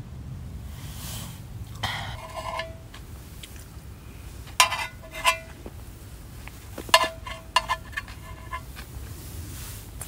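Eating utensils clinking against a dish or pan at a meal: several separate clinks, each ringing briefly.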